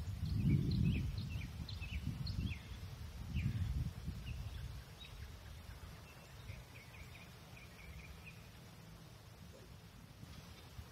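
Birds chirping outdoors: scattered short high chirps, then a quick trill of repeated notes about six to eight seconds in. A low, gusty rumble fills the first four seconds.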